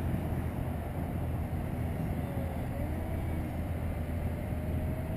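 Distant whine of a small RC parkjet's brushless motor and propeller (A1510 2200kv outrunner on a cut-down 5-inch prop). Its pitch dips and rises about two to three seconds in, then climbs slowly near the end as the plane flies overhead. Under it runs a steady low rumble, which is the loudest sound.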